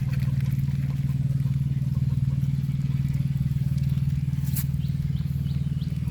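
Small engine running at a steady speed, with an even low hum and a fast regular pulse. A single sharp click sounds about four and a half seconds in.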